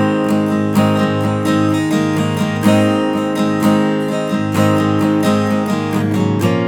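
1970s Japanese-made Morris W-20 acoustic guitar being played, chords strummed and left to ring, with new strokes about every half second.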